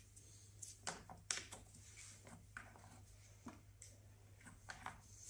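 Faint, scattered clicks and light taps of gloved hands handling a coolant pressure tester on a plastic coolant expansion tank.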